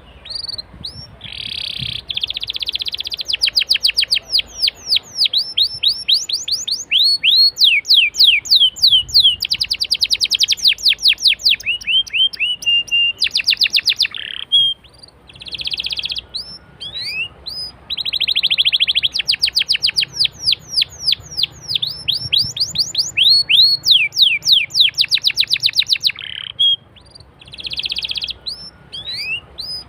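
Domestic canary singing a long song: fast trills of rapidly repeated falling notes alternating with buzzy, held rolls, in phrases broken by brief pauses.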